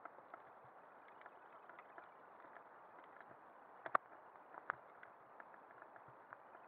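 Mountain bike rolling down a dirt singletrack, heard from the rider's camera: a faint, steady rolling noise with scattered small clicks, and two sharp knocks about four seconds in and again a moment later as the bike jolts.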